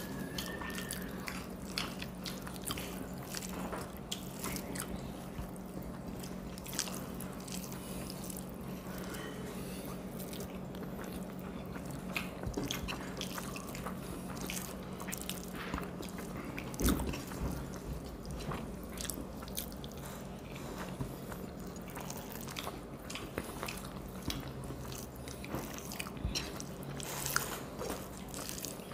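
Two people eating rice by hand: fingers mixing and squishing rice on plates, chewing and lip smacks, many small clicks over a steady low hum. One louder knock comes about halfway through.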